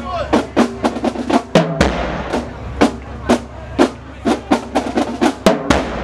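High school marching band drumline playing a street cadence: snare and bass drums struck in a steady beat of about two hits a second, with quicker snare strokes in the first couple of seconds.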